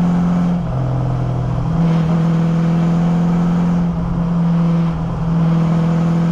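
1953 Ford F-100 pickup's engine and exhaust running steadily at road speed, with the note dropping and picking up again a few times.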